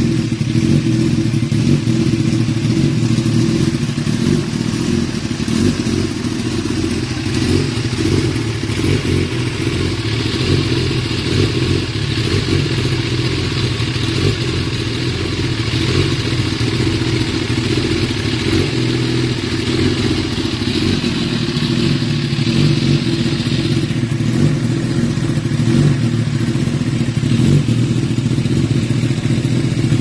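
Kawasaki ZX-10R's inline-four engine idling steadily through an Akrapovic titanium slip-on silencer, an even exhaust note with no revving.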